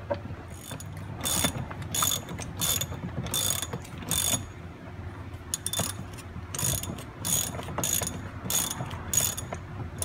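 Ratchet wrench being swung back and forth to tighten the seat belt's upper anchor bolt: a short run of ratcheting clicks on each return stroke, about one and a half strokes a second, with a brief pause near the middle.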